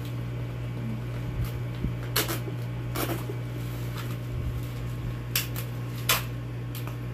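A black plastic mailer package being handled, with several short crinkling rustles of the plastic over a steady low hum.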